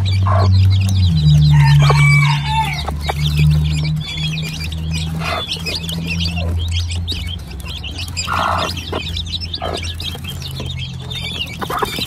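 A brood of young chicks peeping continuously while they peck at feed, with occasional clucks from the mother hen beside them. A low steady hum runs under the first half.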